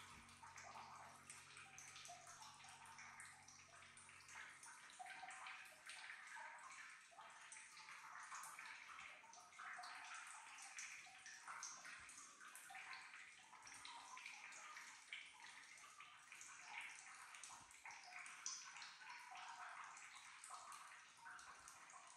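Faint, steady hiss of running water, flickering unevenly. A low hum underneath stops about four and a half seconds in.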